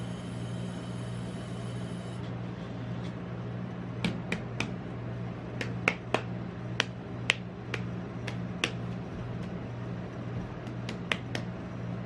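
Gloved fingers tapping and handling a whole cantaloupe's rind, making a string of sharp, irregular taps that start about four seconds in, over the steady low hum of an ice cream roll cold-plate machine.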